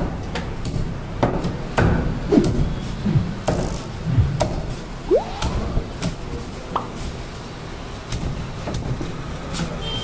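Heavy broad-bladed knife chopping a cobia into steaks, the blade knocking repeatedly on a wooden chopping block at irregular intervals.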